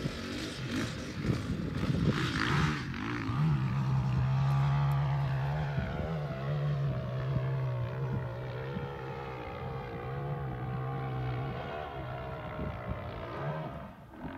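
Husqvarna FE 350 dirt bike's four-stroke single-cylinder engine held at high revs on a steep hill climb. It is loudest in the first few seconds, then grows steadily fainter and slightly lower in pitch as the bike pulls away up the slope.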